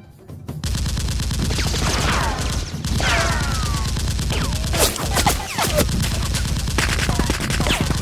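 Rapid gunfire sound effects, a dense fusillade of shots, dubbed over a Nerf blaster fight. The firing starts about half a second in and runs on without a break, with several high whistles falling in pitch, like bullets whizzing past.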